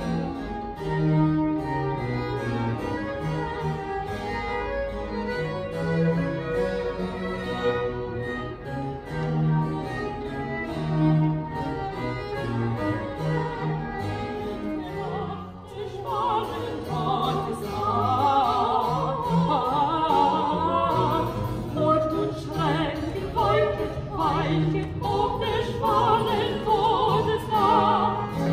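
Small baroque ensemble of violins, cello and harpsichord playing; a little over halfway through, two women's voices enter, singing a classical vocal duet with vibrato over the instruments.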